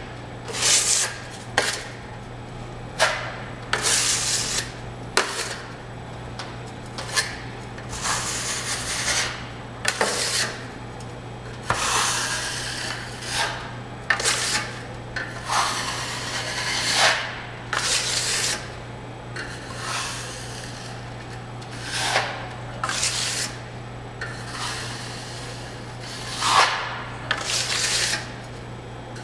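Steel drywall finishing trowel and taping knife scraping wet joint compound across a ceiling seam in a thin skim coat: a string of rasping strokes, each up to about a second long, with a steady low hum underneath.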